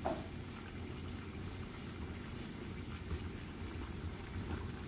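Pan of pork fat pieces bubbling steadily in a little water and melting lard, a soft even crackle of boiling. This is the early boiling stage of rendering chicharrones, with the water cooking off before the fat fries.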